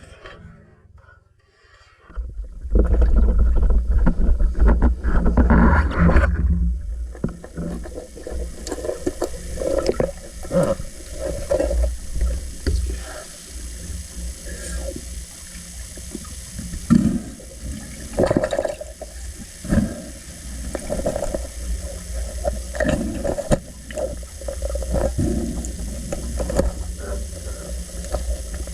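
Water sloshing and bubbling around a diver: a loud, deep rush of water about two seconds in, then irregular swishes and splashes as the diver moves.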